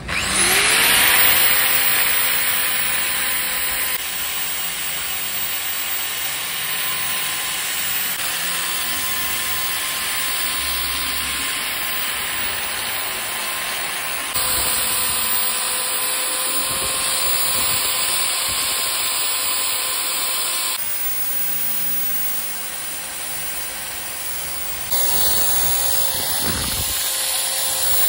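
Electric angle grinder with an abrasive brush sanding the rough surface of an old tree-trunk slab. The motor spins up with a rising whine at the start, then runs at a steady high whine, with the level stepping abruptly up and down several times.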